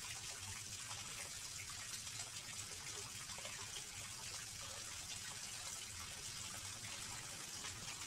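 Small garden fish-pond waterfall: water spilling steadily over a stone ledge and splashing into the pond.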